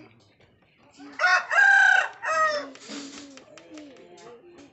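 A rooster crowing once, loudly, a call of about a second and a half that starts about a second in.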